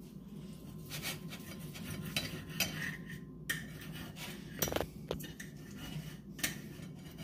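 A fork scraping and clinking against ceramic plates as seasoned raw steaks are handled, in short scattered clicks over a steady low hum.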